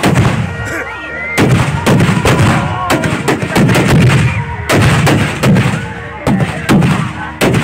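Firecrackers packed inside a burning Ravana effigy going off in a rapid, uneven series of loud bangs, in clusters every second or so.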